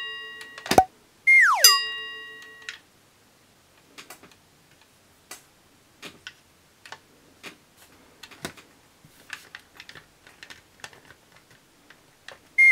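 An edited-in cartoon sound effect, a falling whistle-like tone that settles on a lower note, plays in the first seconds along with a sharp click. Then come faint, irregular clicks and taps of plastic Play-Doh dentist-toy pieces being handled, and another falling tone starts at the very end.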